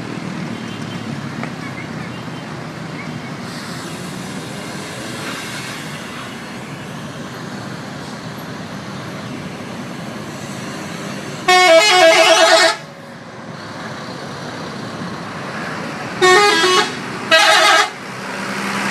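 Bus's telolet multi-tone musical horn sounding a blast of quick changing notes about a second long, then two shorter blasts near the end, over steady road traffic.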